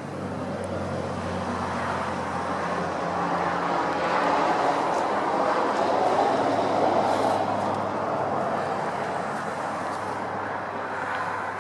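Road traffic: a passing vehicle's noise swells to a peak about halfway through and fades again, over a low steady engine hum.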